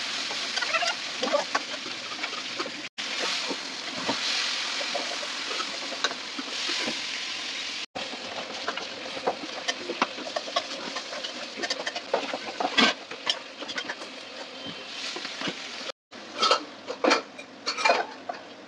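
Kitchen work sounds: scattered clicks and clatter over a steady hiss, cut off abruptly about three times.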